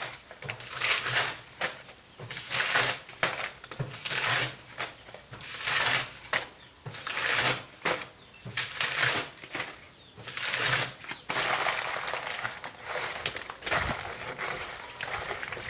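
Paper book pages being crumpled and torn by hand into wet paper pulp for papier-mâché, a rustling crunch about once a second that runs together into a longer rustle near the end, with one short knock.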